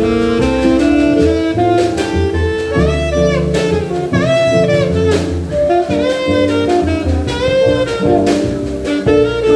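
A Taiwanese-made alto saxophone with a DD Peng mouthpiece plays a jazz melody line, with scooped and bent notes around the middle. A live band with drums and keyboard backs it.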